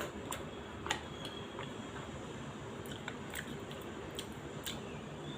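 Faint close-up eating sounds: a person chewing, with scattered short mouth clicks and smacks over a steady low background hum.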